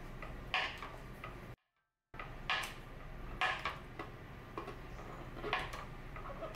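Kitchen knife slicing a block of clear, firm soap on a wooden board: a series of separate crisp clicks about a second apart as the blade cuts through and meets the board. The sound drops out completely for about half a second near the two-second mark.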